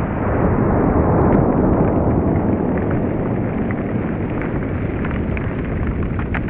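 Rolling echo of a shotgun blast: a dense, loud rumble that swells about a second in and then slowly eases, with a few faint clicks.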